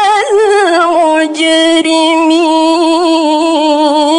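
A woman's voice in melodic Quran recitation (tilawah), drawing out the end of "al-qawma" before "al-mujrimin": wavering ornaments at first, then one long held note.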